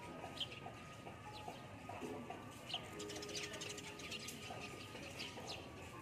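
A flock of sparrows chirping, many short high chirps that thicken into a busy flurry in the middle, with feral pigeons cooing low beneath them.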